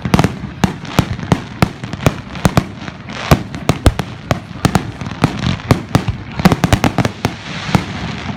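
Fireworks display: a rapid, irregular run of sharp bangs and pops, several a second, over a crackling haze.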